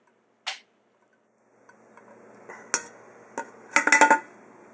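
Glass jars clinking and knocking against each other and against utensils as warm honey is put into them. There are a couple of single knocks, then a quick run of ringing clinks about four seconds in.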